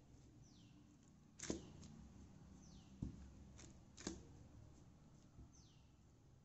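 Near silence, with a few faint pats and crinkles as a hand presses a stuffed wheat-dough ball flat on a ghee-greased plastic sheet. There are three sharper taps, about a second and a half apart.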